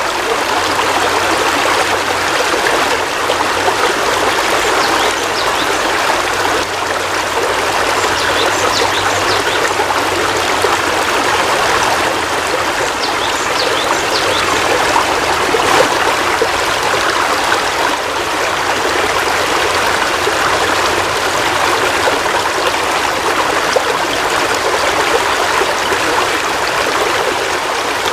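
Heavy rain falling steadily, an even dense hiss of water with no let-up.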